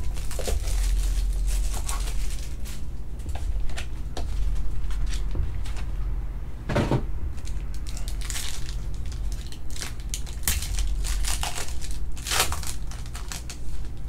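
Clear plastic wrapper of a trading-card pack being torn open and crinkled by hand: irregular crackling rustles, the loudest bursts from about halfway through, over a low steady hum.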